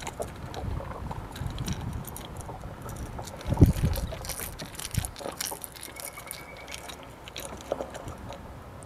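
Close handling noises of a fishing lure being rigged: small clicks and rustles over a low rumble, with a louder knock about three and a half seconds in.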